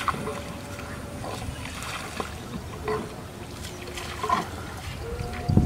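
Water trickling and splashing as a fishing net is hauled by hand out of a river beside a small wooden boat, with a few light knocks.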